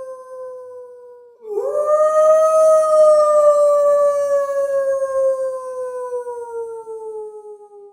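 Wolf howling: one howl tails off and ends about a second and a half in, then a second long howl rises sharply and slowly falls in pitch until it fades out near the end.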